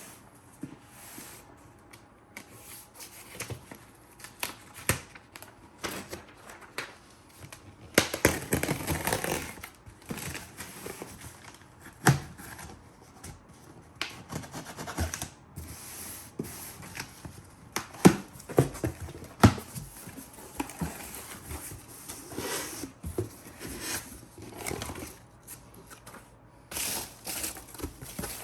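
A cardboard box and its packing being opened and rummaged through by hand: rustling, crinkling and tearing, with scattered knocks and clicks, and a longer stretch of rustling about eight seconds in.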